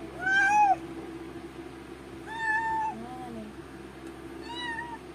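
A tabby cat meowing three times, about two seconds apart, with a short lower meow just after the second; the first is the loudest. She is a cat in labor, and her owner takes the meows for asking for help.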